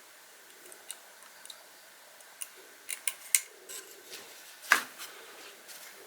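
A series of sharp clicks and taps from small tools and parts being handled during work on an LED security light. The clicks are spaced irregularly, bunch together a little after the middle, and the loudest is a single snap about three-quarters through.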